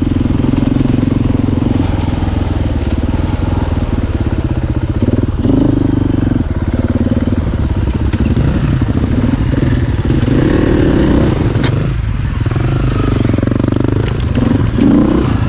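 Dirt bike engine running as the bike is ridden along a trail, its sound shifting with the throttle.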